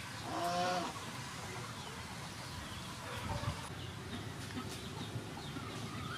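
Chickens clucking, with one loud drawn-out call about half a second in and fainter clucks after.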